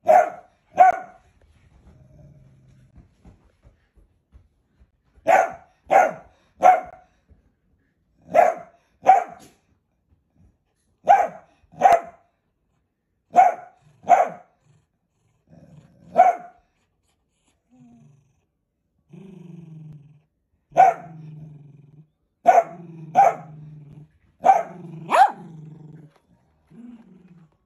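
Long-haired dachshund barking in sharp, short barks, mostly in quick pairs and threes with pauses between. In the last third a low, steady growl runs under the barks.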